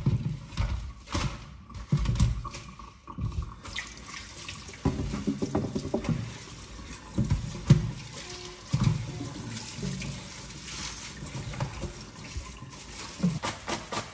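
Kitchen tap running into a stainless steel sink while leaves and stalks are rinsed and handled in a plastic colander, with irregular splashes, rustles and knocks throughout.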